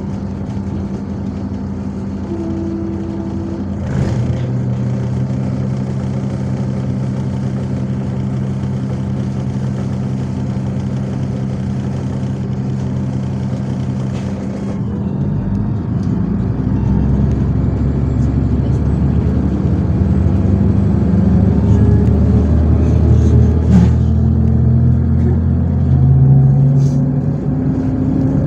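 MAZ 103.465 city bus's diesel engine running steadily, heard from inside the cabin, with a sharp knock about four seconds in. From about halfway the engine note rises and changes step as the bus accelerates.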